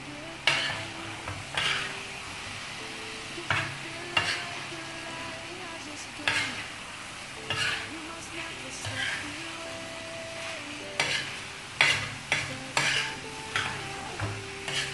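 Perforated metal spatula scraping and stirring chicken masala in a tawa, over a steady sizzle of frying oil: the masala is being fried down until the oil separates. The strokes come about once a second, quicker near the end.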